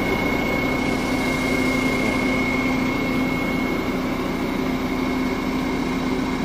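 An idling engine giving a steady hum, with a constant high-pitched whine over it.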